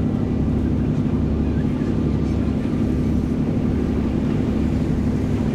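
A large passenger ferry's engines and machinery drone steadily at the quay as it prepares to depart, a constant low hum with a steady mid-low tone. The sound is sped up to double speed.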